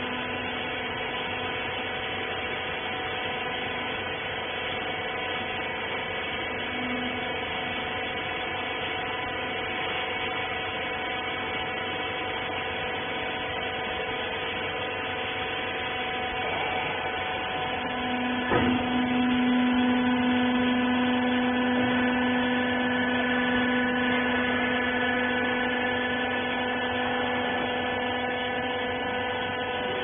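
Hydraulic rag baler's electric motor and hydraulic pump running with a steady hum and whine. About 18 seconds in there is a click, then a stronger low hum that holds for several seconds before easing off.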